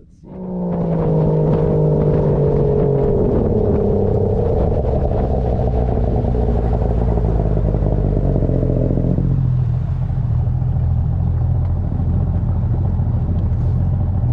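Boat outboard motor running as the boat moves off. It comes in suddenly, its pitch eases down over the first few seconds, then it runs steadily with a low rumble.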